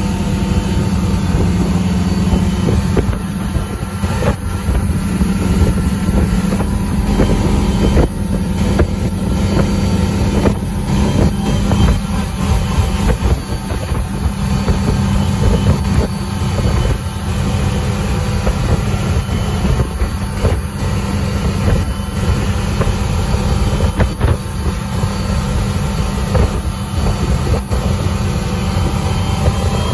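Ski boat's engine running steadily at towing speed, with wake water rushing behind the hull and a few brief sharp knocks.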